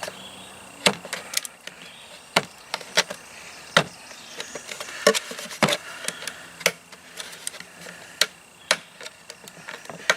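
Knife blade cutting and prying through the wall of a coffee can, giving irregular sharp clicks and snaps, about one or two a second, with light scraping between them.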